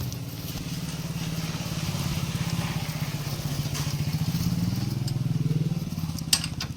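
A small engine running steadily, a low pulsing hum that swells a little about five seconds in, with a single sharp click near the end.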